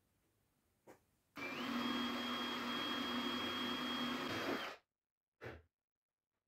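A handheld electric power tool running at steady speed for about three seconds, with a steady hum and a high whine; it starts abruptly and cuts off suddenly. A short knock follows.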